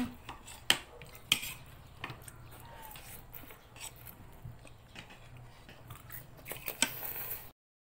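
Spoons and forks clinking and scraping on plates and bowls while eating, with a few sharp clinks over a low steady hum. The sound breaks off briefly near the end.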